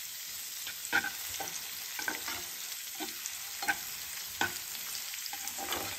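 Finely chopped onion frying in hot oil in a nonstick pan, sizzling steadily, while a spatula stirs it, striking and scraping the pan about once a second.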